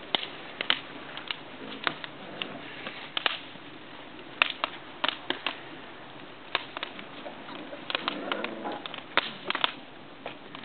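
Romanian Carpathian Shepherd puppies scampering and tussling on paving stones: irregular pattering and sharp clicking of claws and paws, now and then in quick flurries.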